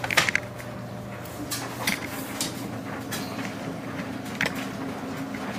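Steady hum of running laundry machines, with several short clicks and knocks from a door or lid being handled.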